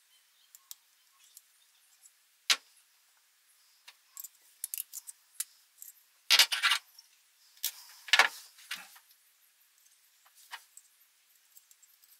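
Small metal parts being handled: scattered sharp clinks, then two short bursts of clattering and jingling about six and eight seconds in.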